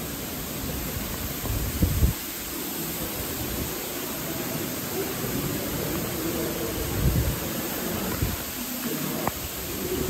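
Citiq Master firefighting fog nozzle spraying a wide cone of water mist, a steady hiss. A few short low rumbles rise over it, the strongest about two seconds in.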